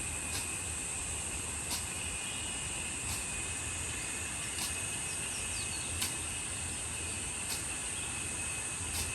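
Steady high-pitched chorus of insects, with faint short ticks repeating about every one and a half seconds.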